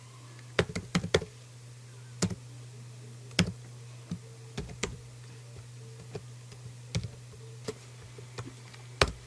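Computer keyboard being typed on: a dozen or so separate key clicks at uneven, unhurried intervals, over a steady low hum.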